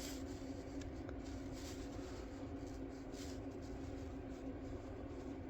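Light rustling and handling of printed paper sheets, a few soft scrapes and ticks, over a steady background hum.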